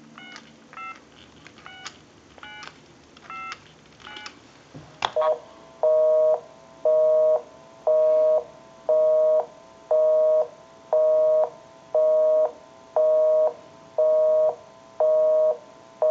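Touch-tone dialing on a push-button telephone: a quick run of DTMF beeps, then a click about five seconds in and a busy signal, a two-tone beep pulsing on and off about once a second, telling that the called line is busy.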